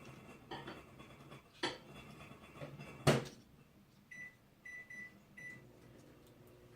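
Clicks and knocks of plastic camera parts being handled and pried apart, with one sharp crack about three seconds in, followed by a few short, high electronic beeps.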